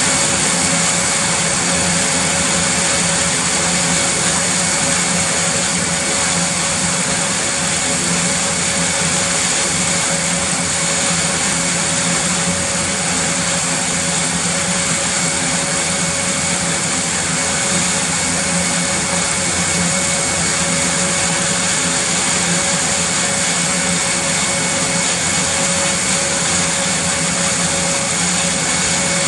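Airbus A400M's Europrop TP400-D6 turboprop engines running steadily on the ground with the eight-bladed propellers turning. It is a loud, even drone with a steady whine over it and no change in pitch or level.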